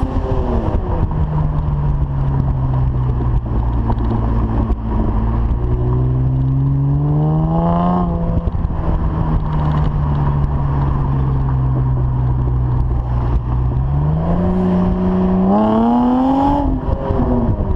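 Saturn Aura's 3.6-litre V6 running through a 2.5-inch cat-back exhaust with a Vibrant resonator and Magnaflow muffler, under way. The revs fall after a gear change and hold steady at cruise, then climb under acceleration to another shift about eight seconds in. The engine cruises again, then accelerates from about fourteen seconds in to a third shift near the end.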